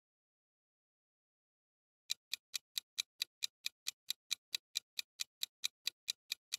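Ticking-clock countdown timer sound effect: quick, even ticks, about four or five a second, starting about two seconds in.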